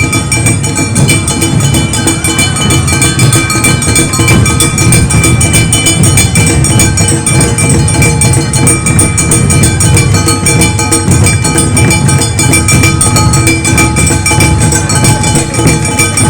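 Awa Odori festival band playing: a fast, dense beat of drums and clanging metal strikes, with high held tones running over it.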